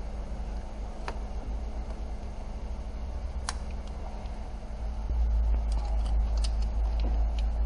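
Sharp plastic clicks and light taps from wiring harness connectors on the transmission being handled: one click about a second in, another near the middle, and several quick ones near the end. Under them a steady low hum, with a low rumble that gets louder about five seconds in.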